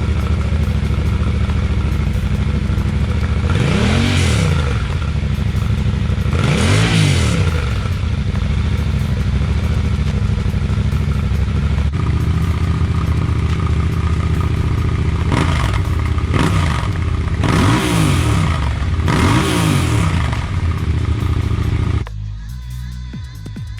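Yamaha Ténéré 700's parallel-twin engine idling through its exhaust, blipped six times, each rev rising and falling quickly: two blips early, then four in closer succession later. The engine sound cuts off near the end.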